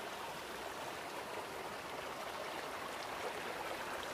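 Shallow rocky forest stream flowing over stones: a steady, even rush of water.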